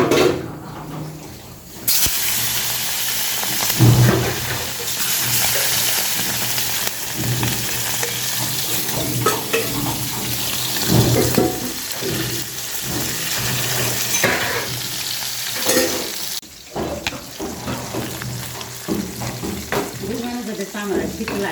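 Flour-coated goat brain frying in hot oil in a pan: a loud sizzle that starts suddenly about two seconds in and eases off about sixteen seconds in, with stirring in the pan.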